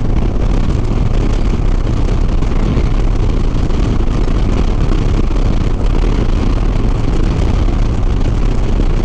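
Harley-Davidson Sport Glide cruising at highway speed: steady engine drone under a constant rush of wind on the microphone.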